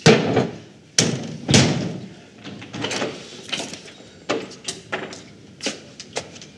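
Three loud, sharp knocks in the first second and a half, then a run of lighter taps and knocks about every half second, typical of a door and handled objects in a kitchen.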